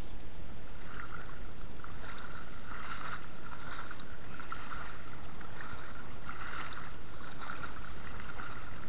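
Shallow water sloshing around legs wading through it, in irregular surges over a steady rushing noise.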